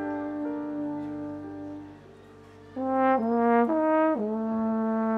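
Horn section of a jazz big band playing held chords that fade away about two seconds in, then return loud with a phrase stepping down in pitch into a sustained low chord.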